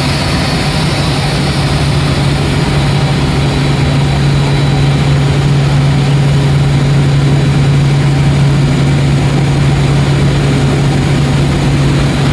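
Airbus A380's jet engines running with a loud, steady low drone.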